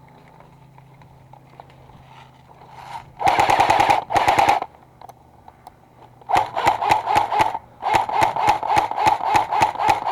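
Automatic airsoft gun firing in rapid bursts, its mechanism whining under each string of shots: a short burst about three seconds in, then longer bursts from about six seconds on.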